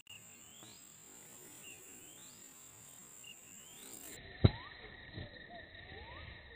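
Faint plantation ambience: a steady high insect drone with a short rising call repeating every second or so. About four seconds in, the whole sound drops abruptly to a much lower pitch, and a single sharp thump follows shortly after.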